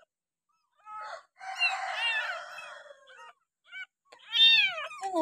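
Young kittens mewing: a string of short, high mews, with a longer, rougher cry about two seconds in and the loudest mew, rising then falling in pitch, near the end.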